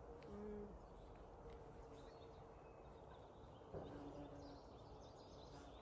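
Near silence: faint outdoor ambience with distant birds chirping over low background noise.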